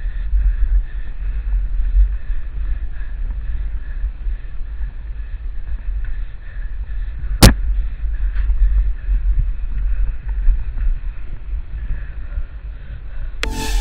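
Low rumbling buffet of wind and trail noise on the camera microphone of a mountain bike being ridden, with one sharp click a little past halfway.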